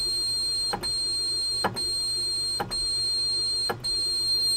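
Roland Juno-60 synthesizer in test mode, sounding a steady tone that is retriggered with a click about once a second as it steps through its six voices. With the filter fully open every voice sounds clean: the distorted, FM-like voice fault does not show, which points away from the oscillators.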